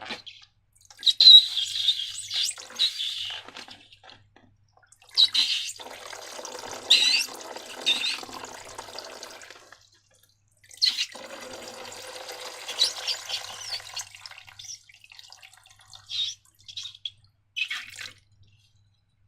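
Liquid slime being poured or squeezed out and splattering, in three spells of a few seconds each, followed by a few short wet squishes near the end.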